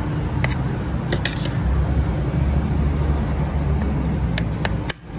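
Metal fork and spoon clinking and scraping against a ceramic plate with a few sharp taps: once about half a second in, a quick cluster around a second in, and three more near the end. Under them runs a steady low rumble.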